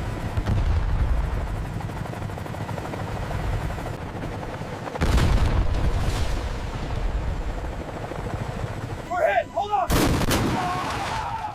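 Helicopter rotor thudding over a heavy low rumble, broken by a sudden loud blast about five seconds in. A bigger blast follows about ten seconds in, typical of gunfire and explosions striking the aircraft.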